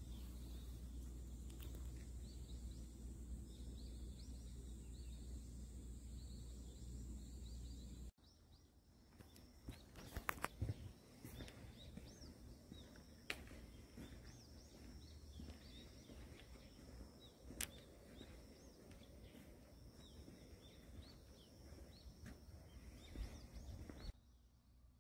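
Faint outdoor ambience: a low steady rumble with small birds chirping faintly now and then. The rumble drops away about eight seconds in, and a few sharp clicks follow.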